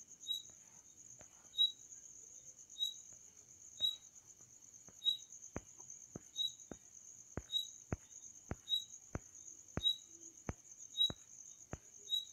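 Faint, steady, high-pitched cricket trill with a shorter chirp repeating about once a second. From about halfway through comes a run of faint sharp clicks, roughly two a second.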